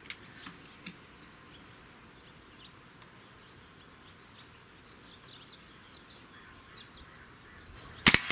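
Faint bird chirps while the rifle is aimed. Near the end comes a single sharp shot from a .25-calibre Hatsan Torpedo 150 Sniper, an under-lever air rifle with a Vortex gas piston.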